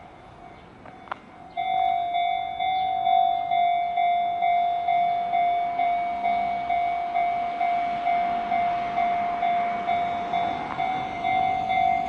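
Japanese railway level-crossing electronic warning bell starting suddenly about a second and a half in, then ringing in a steady, even pulse of about two strikes a second: the crossing signal warning of an approaching train.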